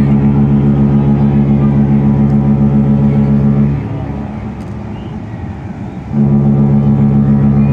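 Cruise ship Ovation of the Seas' whistle sounding long blasts as a departure signal: a deep, steady horn chord that cuts off about four seconds in, then after a pause of about two seconds starts another long blast.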